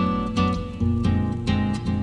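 Instrumental intro of a bossa nova song: acoustic guitar plucking a string of chords that ring and fade, over low bass notes.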